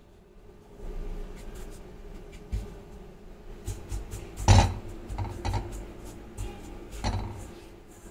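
A hand stirs and spreads coarse salt in a metal kadhai heating on a gas stove, with a few knocks of metal on metal. The loudest is a sharp thud about halfway through, and a second one comes near the end, over a faint steady hum.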